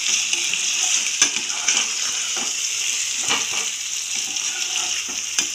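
Chicken koftas and thick masala sizzling in a pan while a spatula stirs them. There is a steady frying hiss, and the spatula now and then scrapes or knocks against the pan.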